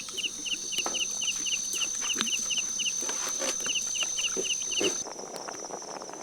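Night insect chorus: a steady high-pitched drone with a rhythmic chirp about five times a second. About five seconds in, the drone and the chirping give way to a quieter, faster pulsing. Light knocks and clinks of handling sound through the chorus.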